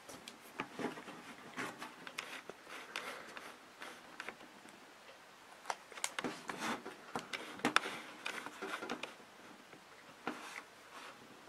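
Faint, scattered small clicks and crinkles of a snack bar's plastic wrapper being handled in the fingers.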